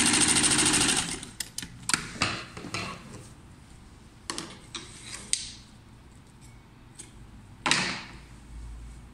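Sewing machine running steadily at speed and stopping about a second in, then short clicks and brief rustles as scissors and the fabric are handled, with one louder rustle near the end.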